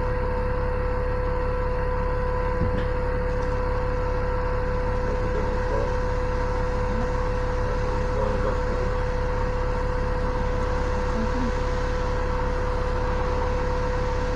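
Inside an Alexander Dennis Enviro400 double-decker bus standing still: the bus running at idle, a steady low drone with a steady mid-pitched tone over it.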